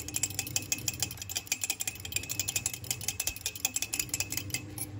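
Metal cutlery clinking quickly and steadily against a mug while whisking egg, oil, milk and sugar into a chocolate mug cake batter. The clinking stops at the end.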